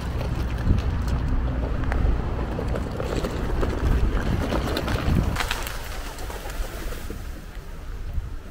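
Wind rumbling on the microphone by the sea, cutting off about five seconds in to a quieter stretch with a few short bird calls.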